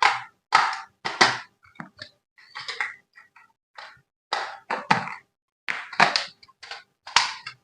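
Irregular knocks and clicks of small hard objects being handled, about a dozen sharp taps and thunks with short silences between them.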